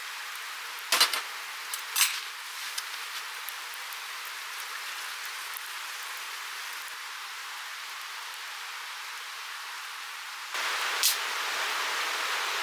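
A steady, even hiss with a few sharp clicks, the two loudest about one and two seconds in. Near the end the hiss steps up louder and one more click sounds.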